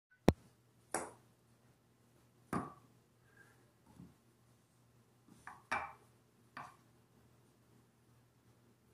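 Wooden rolling pin knocking and clattering against a round wooden chapati board, about six separate knocks, the sharpest a moment after the start.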